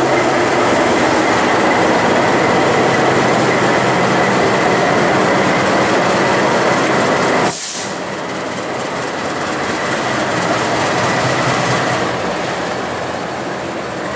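CC 206 (GE C20EMP) diesel-electric locomotive's V8 diesel engine idling with a steady, even drone and a thin whine above it. About halfway through the sound breaks off for a moment, then carries on a little quieter.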